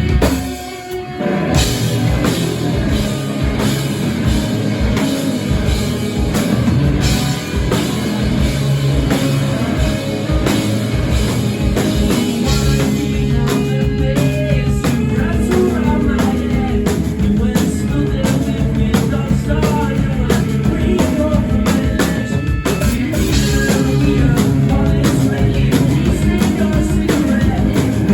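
Rock music played on drum kit and guitar, with a brief drop in level about a second in.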